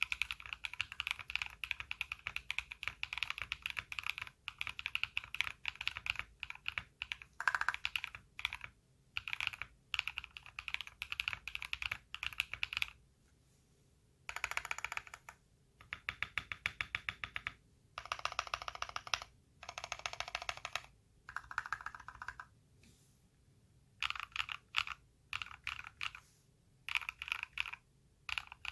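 Typing on a Royal Kludge RK61 Pro aluminium-case mechanical keyboard: bursts of crisp keystrokes separated by short pauses. Around the middle come several runs of very rapid repeated key presses.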